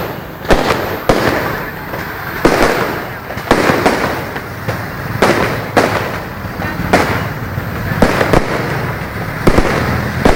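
Fireworks display going off: a sharp bang roughly every second, with continuous crackling between the bursts.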